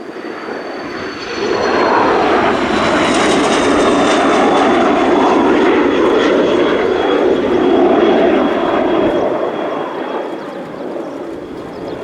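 Military jet passing low, its engine noise swelling about a second in, holding loud and fading near the end, with a high turbine whine that slowly falls in pitch as it goes by.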